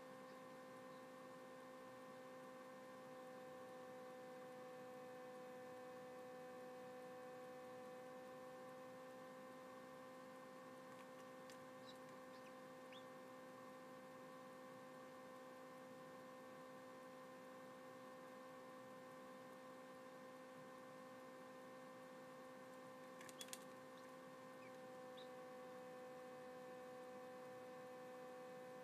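Faint steady hum from a small egg incubator's fan, made of several even tones, with a few faint ticks and a short cluster of clicks about two-thirds of the way through.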